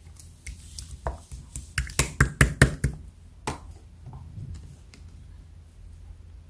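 Clear slime being pressed and worked by hand, giving sharp little pops and clicks that bunch into a quick run of loud pops about two seconds in, with a last one shortly after.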